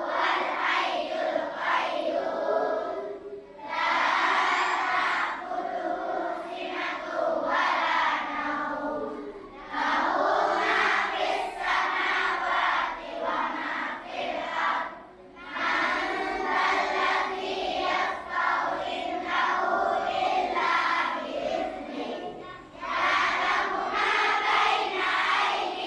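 A large group of schoolchildren chanting together in unison, in phrases several seconds long with short breaks between.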